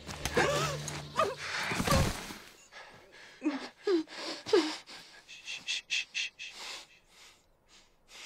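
A woman's sharp gasps and cries, then three short whimpers muffled by a hand clamped over her mouth, then quick heavy breathing.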